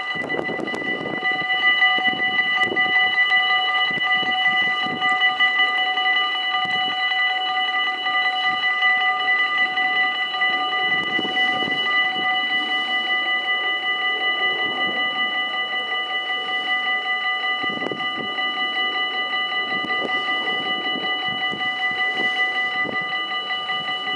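Dutch AHOB level-crossing warning bells ringing in a fast, continuous peal, the signal that a train is approaching and the half barriers are coming down.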